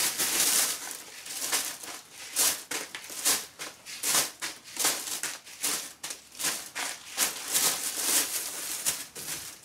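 A thin plastic shopping bag rustling and crinkling as foil emergency-food pouches are handled and packed into it, in a quick run of irregular crinkles and rustles.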